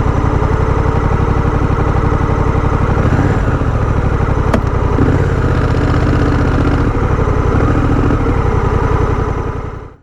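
Honda Rebel 1100 DCT's parallel-twin engine idling with a steady low pulse, fading out near the end.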